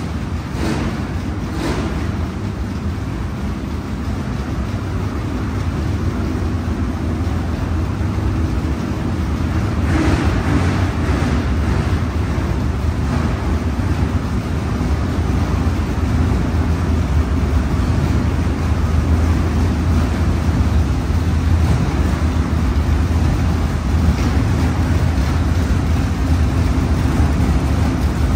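Dirt-track race car engine idling, a steady low rumble that gets louder about ten seconds in.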